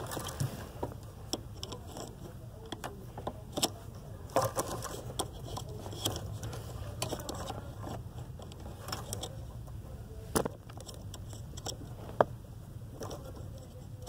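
Screwdriver and fingers prying at a brake light switch's plastic cap and wiring under a car's dashboard: scattered clicks, taps and scrapes, a sharper click about ten seconds in and another near twelve seconds, over a steady low hum.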